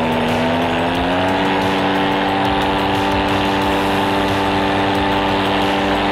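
Paramotor's two-stroke engine and caged propeller running hard during a climb-out. Its pitch rises in the first second, then holds steady.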